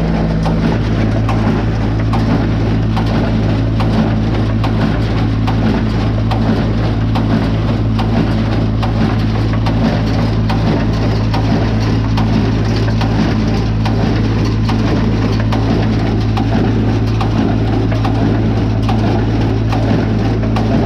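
Tractor engine running steadily, driving a hay baler through the PTO at close to 540 rpm, with a steady hum and a busy clatter of ticks from the baler's moving parts.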